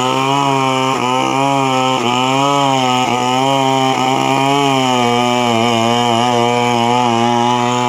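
Chainsaw running at high revs, its pitch wavering up and down, with a few brief dips in the first few seconds.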